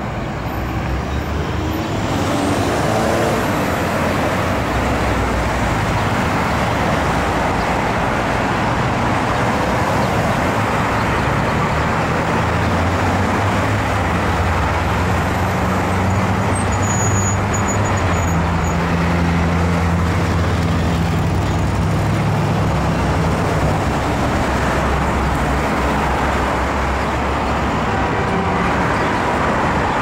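Steady road traffic: cars and trucks driving through a busy multi-lane intersection, tyre noise and engines mixed. A lower engine drone from a passing vehicle rises over it from around the middle for about ten seconds.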